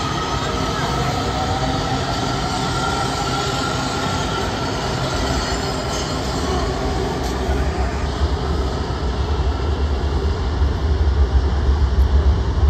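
Washington Metro 7000-series subway train pulling out of an underground station, its cars rumbling past with a high whine from the wheels and motors over the first few seconds. A heavy low rumble builds through the last few seconds as the train enters the tunnel.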